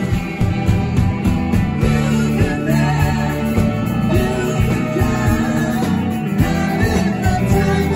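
Live rock band playing: electric guitar, bass and drums, with a singing voice.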